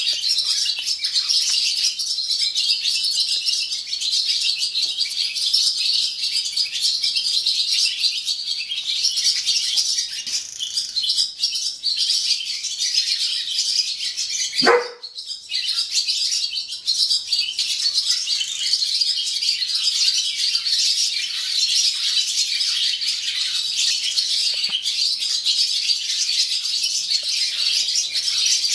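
Barn swallows' morning chorus: many birds twittering and chattering without a break. A single short thump about halfway through is the loudest moment, and the twittering dips for a moment after it.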